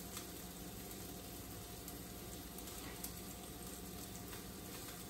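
New York strip steak sizzling faintly in a cast iron pan on high heat, a steady crackling hiss, with a couple of soft clicks.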